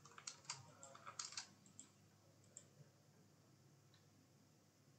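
Faint computer clicking from a mouse and keyboard: a quick run of about eight clicks in the first second and a half, and one more a little past two and a half seconds.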